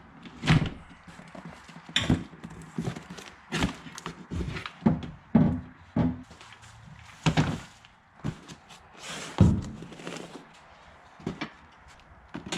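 Irregular knocks and thuds of engine parts and boxes being picked up and set down, a dozen or so separate impacts with short quiet gaps between them.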